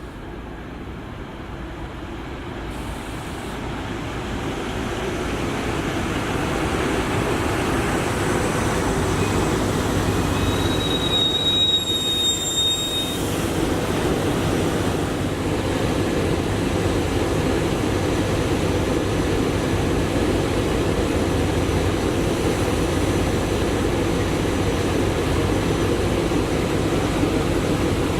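SEPTA Regional Rail electric train rolling past. The rumble of wheels on rail builds over the first several seconds, then holds steady and loud. Near the middle comes a brief high-pitched squeal.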